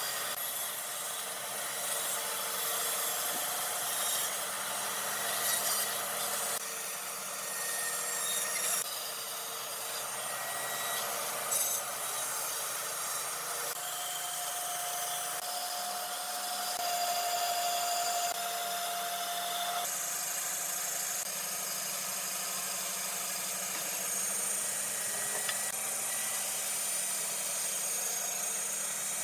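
Power tools working wood: a steady hissing cut or sanding noise that changes abruptly every few seconds. A steady whine runs through the middle.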